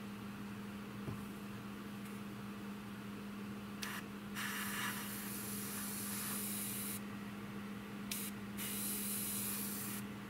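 Airbrush spraying paint in short bursts of hiss: a brief one about four seconds in, a longer one of about two and a half seconds, then two more near the end.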